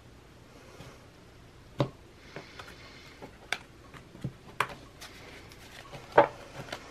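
A deck of cards being handled by hand: cards sliding against each other and a scattering of short taps as the deck is shuffled, squared and set down on a cloth, the sharpest tap near the end.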